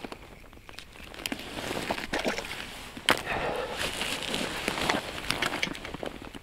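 Rustling and crackling of cold winter clothing and hands moving close to the microphone, with scattered sharp clicks; the sharpest click comes about three seconds in.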